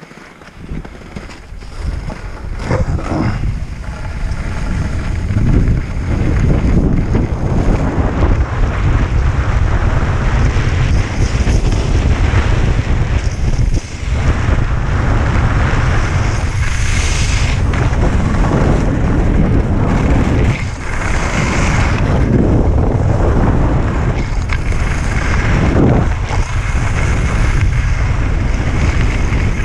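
Wind buffeting a helmet-mounted camera's microphone during a downhill ski run, building over the first several seconds as speed picks up and then holding steady, with skis scraping and hissing on packed snow.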